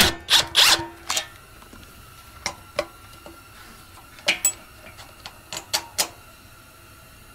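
Socket wrench ratcheting in a few quick strokes on the nut of a Honda GX240's carburetor and fuel shutoff unit in the first second or so, then scattered clicks and scrapes as the unit is handled and worked off its mounting stud.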